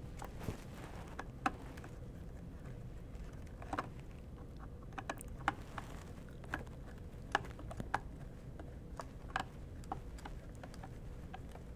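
Scattered light clicks and ticks of a small screwdriver working the screw of a plastic screw-terminal block as a power wire is fastened in it, over a faint steady room hum.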